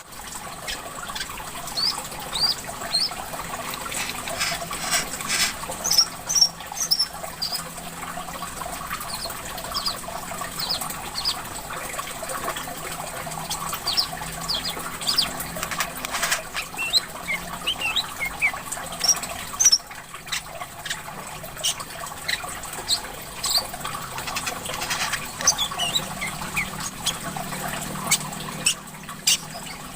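A small songbird chirps and twitters rapidly, in short sharp high notes, over a steady background of trickling water.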